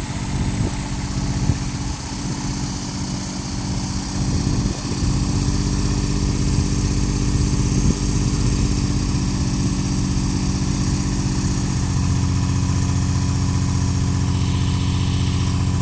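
Mini crawler crane's engine running steadily, powering its hydraulics while it holds a heavy glass pane on a vacuum lifter. The engine note changes about twelve seconds in, and there are a few light knocks in the first few seconds.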